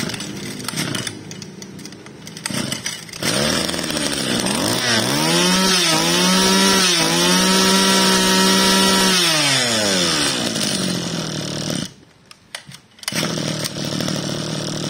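Mitsubishi TL26 26cc two-stroke brush-cutter engine running. It is revved up to high speed about three seconds in, with two brief dips, then eased back down to idle. Near the end it almost dies away for about a second before idling again.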